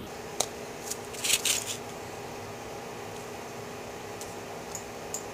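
A paintbrush scraping and tapping briefly inside a small glass jar of powdered weathering pigment, a cluster of faint scrapes about a second in and a few light ticks near the end, over a steady low hum.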